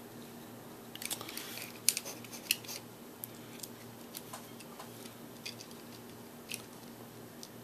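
Small clicks and taps of robot arm kit parts and a small screw being handled and fitted together: a quick run of clicks about a second in, then scattered single ticks.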